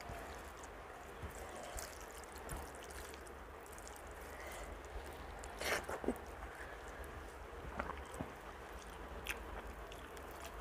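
Eating rice and dal by hand from a steel plate: fingers squishing the wet rice and lentils, with chewing and wet mouth sounds. A louder, sharp mouth sound comes about halfway through as a mouthful goes in.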